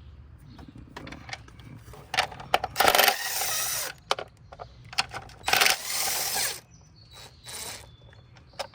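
Small hard objects being handled: a scatter of light clicks and clinks, with two louder rustling or scraping noises of about a second each, around three and five and a half seconds in.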